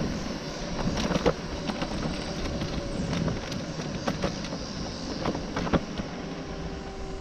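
Electric scooter riding along a paved path: steady wind noise on the microphone and tyre rumble, with a handful of sharp clicks and rattles as it rolls over bumps and joints in the pavement.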